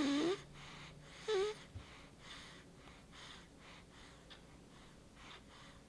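Sleeping baby snoring: two short, louder snores with a squeaky pitch, one at the start and one about a second and a half in, then softer breaths about once a second.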